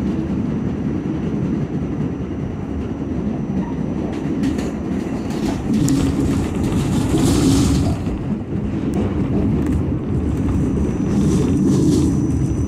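R46 subway car heard from inside, running at speed: a steady low rumble of wheels on rail, with a brief rise of hissing rail noise a little past the middle.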